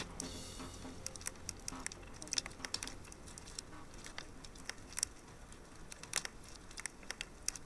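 Fire crackling: irregular sharp pops and snaps over a faint hiss.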